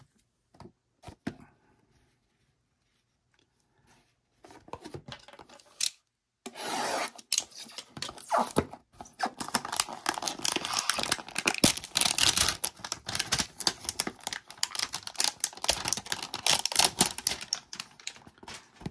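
Trading-card packaging being handled and torn open: a few faint clicks of cards set down, then from about four seconds in a continuous crackling rustle and tearing of cardboard box and plastic wrap.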